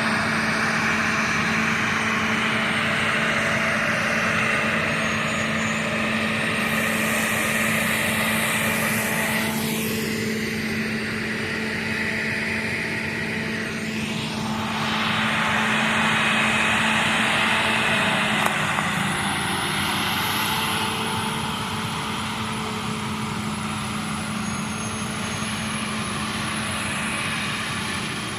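Heavy farm machinery of a corn silage harvest running steadily: a constant engine drone with a broad mechanical rush, and a thin high whine coming in about two-thirds of the way through.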